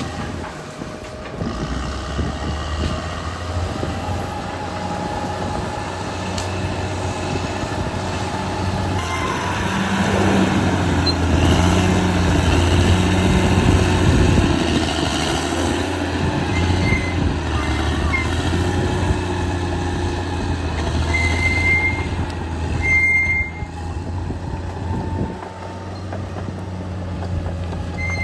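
Caterpillar D6R XL bulldozer's diesel engine running under load, working harder and louder through the middle. A few brief high squeals come near the end.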